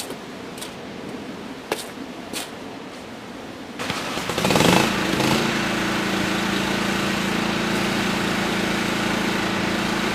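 John Deere riding lawn mower engine coming in suddenly about four seconds in, loudest just after, then running steadily. Before it there is only faint background with a few light clicks.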